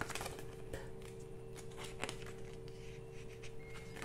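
Pages of a paper booklet being leafed through by hand: soft rustling with a few sharp page flicks, the strongest at the start and about two seconds in, over a faint steady hum.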